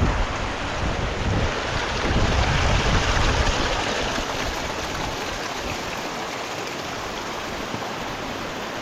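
Steady rushing of water from small mountain streams. For about the first four seconds, wind rumbles on the microphone, strongest around two to three seconds in.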